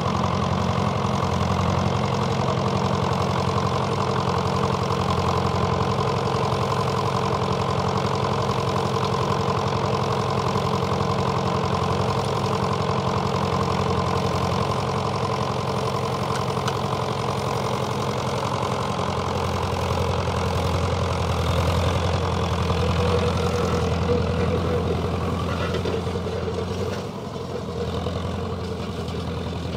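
Tractor's Perkins diesel engine running steadily at idle with a low, even note. The note swells slightly about two-thirds of the way in and dips back near the end.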